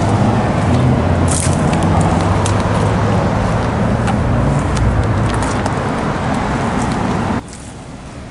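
A central air conditioner's outdoor condensing unit running: steady fan rush over a low compressor hum, with a few light ticks. The level drops suddenly about seven seconds in.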